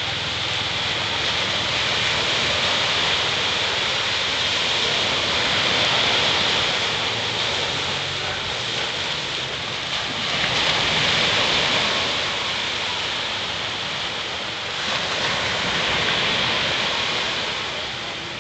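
Ocean surf breaking and washing on the shore, a steady rush that swells and eases with each wave, about every five seconds.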